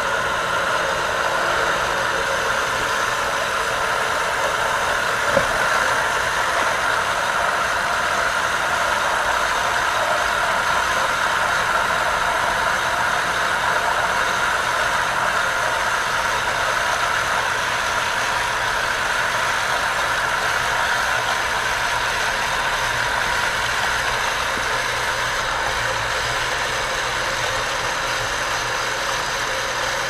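AquaPro 1/2 HP shallow-well jet pump running steadily under load, building pressure in its tank toward the new pressure switch's 60 psi cut-out. A single brief knock sounds about five seconds in.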